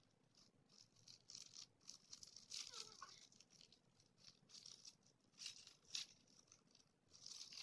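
Faint crinkling and rustling of a small plastic wrapper handled and picked open by fingers, in short irregular bursts.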